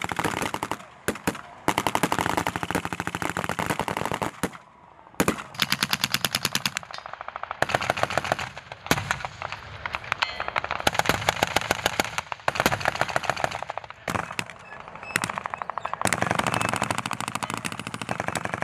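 Automatic machine-gun fire in long strings of rapid shots, broken by several short pauses.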